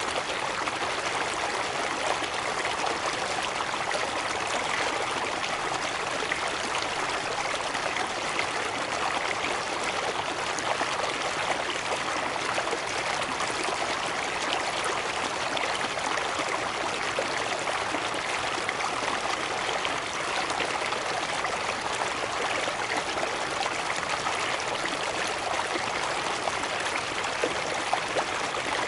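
Water rushing steadily over a cascade, an even hiss-like rush with no pauses and little deep rumble.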